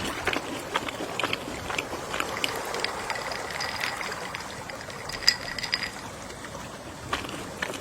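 Gentle sea waves washing in, a steady wash dotted with many small clicks and crackles and one sharper tick about five seconds in.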